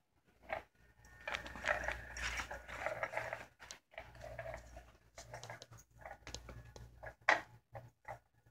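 Electronic cat toy running under a fabric mat: its motor hums in spurts while the moving part rustles and scrapes against the cloth. A sharp tap comes about seven seconds in.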